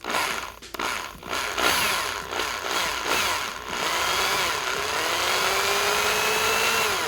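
Small power drill drilling out the rivet of a die-cast toy car's base, grinding steadily. Its motor whine rises and sags as the bit bites into the metal.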